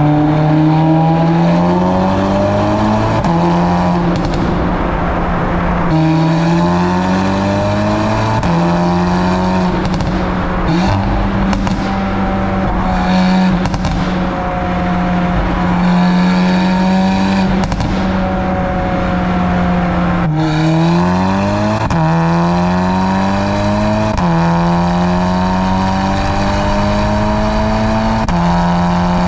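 Audi S3 8Y's turbocharged 2.0-litre four-cylinder accelerating hard through a catless downpipe and a stock muffler with no resonator. The exhaust note climbs in pitch and drops back again and again as it runs up through the gears, with a few sharp cracks around the middle. Much of it echoes off the walls of a road tunnel.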